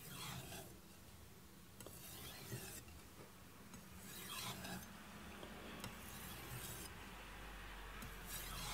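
Knife blade of aogami #2 steel stroking across a Kitayama 8000-grit finishing water stone with light pressure, alternating sides to remove the burr. Soft, faint scraping strokes come every couple of seconds.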